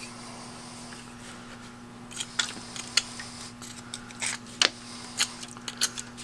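Metal pick scratching and picking at the rust on an iron artillery shell, a string of short sharp scrapes and clicks from about two seconds in. The rust scale has been loosened by electrolysis and comes away easily.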